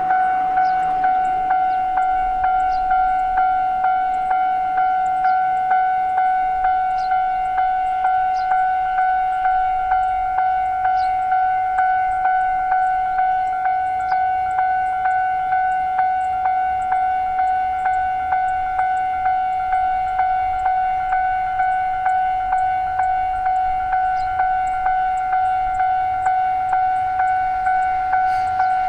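Japanese railway level-crossing alarm ringing its repeated "kan-kan" tone, about two strikes a second, warning of an approaching train.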